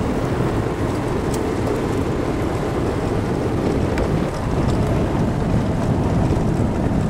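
Golf cart driving fast down a driveway: a steady noise of the cart and its tyres, with wind buffeting the microphone.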